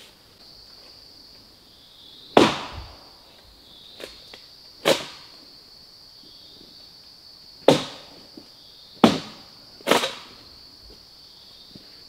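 Dry sticks snapping as firewood is broken, five sharp cracks a few seconds apart. A steady high insect drone runs underneath.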